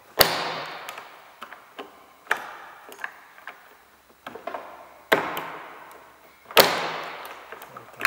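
Sharp clacks and knocks of a BMW 1 Series rear exterior door handle being pushed and worked back into its mount in the door, behind the metal retaining clip. There are four loud knocks a couple of seconds apart, with lighter ticks between, each knock leaving a short echo.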